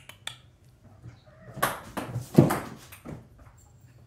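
Kittens' paws scampering and thumping on a hardwood floor as they dash after tossed toys: a quick flurry of thuds and scrabbles starting about a second and a half in, heaviest near the middle.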